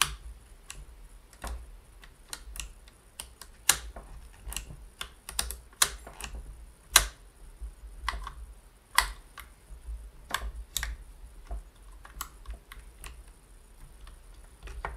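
Irregular small metallic clicks and taps from the cam stack of a Singer 401a sewing machine as it is jiggled by hand to work it loose, the sharpest click about halfway through.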